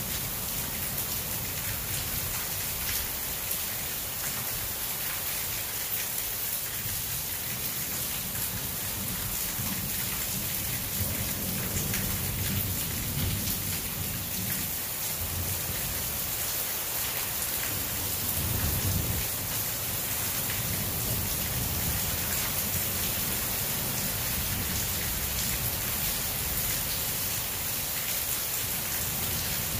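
Heavy rain pouring steadily onto a wet concrete patio and garden leaves, a dense hiss of drops. Low rolling thunder rumbles under it, swelling around the middle and again about two-thirds of the way through.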